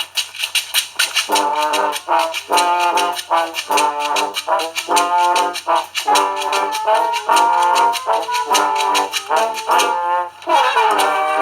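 Street brass band playing a melody in short phrases over fast percussion. The brass comes in about a second in and pauses briefly near the end before resuming.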